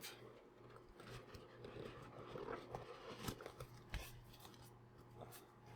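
Faint rustling and a few sharp clicks of a cardboard trading-card box being opened by hand, over a low steady hum.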